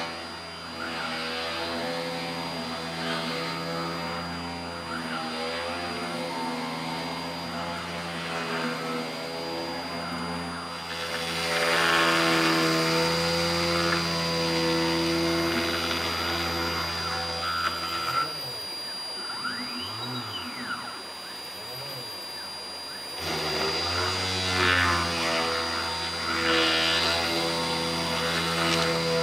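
A 48 V, 400 W DC spindle motor on a small CNC router running at about 5,000 RPM under PWM speed control, a steady hum with a thin high whine from the 5 kHz drive signal. A 1/8-inch bit drilling pockets in aspen adds a louder rasping cutting noise, which drops away for about five seconds in the middle and then returns.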